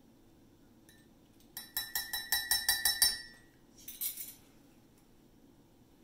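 Metal spoon clinking quickly against a ceramic mug, about ten ringing strikes over a second and a half, followed a second later by a short scrape.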